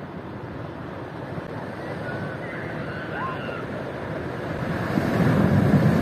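Ocean surf: a steady wash of waves that swells into a louder breaking wave about five seconds in.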